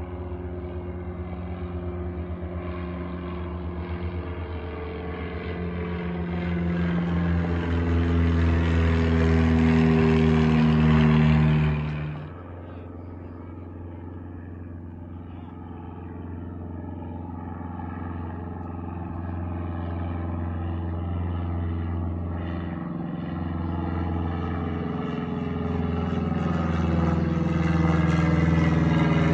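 Light single-engine propeller plane droning as it flies in, growing steadily louder. The sound cuts off abruptly about twelve seconds in, then a quieter drone builds again as a high-wing light plane comes overhead near the end.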